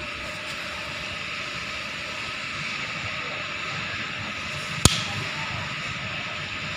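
Steady whirring background noise, with one sharp click about five seconds in as the lower timing-chain tensioner is worked loose by hand from the engine.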